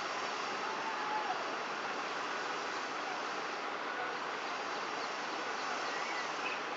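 Steady outdoor background hiss, with a few faint, short bird chirps, the clearest near the end.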